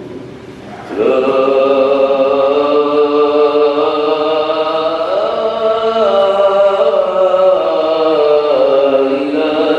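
A single man's voice chanting in Arabic during Friday prayer. It begins about a second in after a short lull and moves through long held notes that slide up and down.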